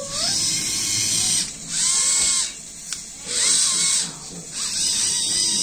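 Electric motors of a LEGO Technic gantry robot whirring in four quick bursts, each with a whine that rises and falls in pitch as the axes speed up and stop, with short pauses between moves.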